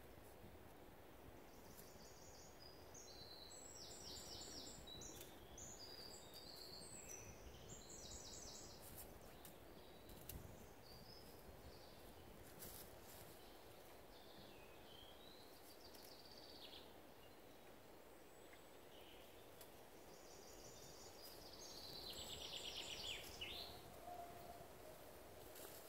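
Faint woodland birdsong: small songbirds singing high, fast-trilled phrases, one spell a couple of seconds in and another near the end, over a quiet hush. A few faint knocks in the middle.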